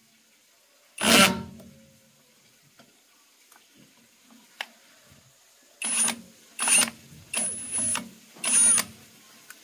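Cordless drill/driver running in short bursts on the screws of an electric motor's terminal box cover: one burst about a second in, then about five quick bursts in a row near the end, each with a high motor whine.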